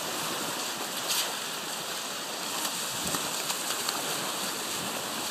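Small waves washing onto the beach, a steady hiss of surf with a faint tick about a second in.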